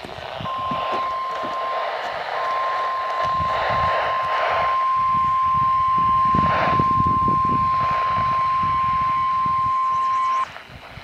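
Weatheradio Canada's 1050 Hz warning alarm tone: one steady, loud beep held for about ten seconds, over radio static, signalling that a weather warning is about to be read. It drops out briefly about two seconds in and cuts off shortly before the end.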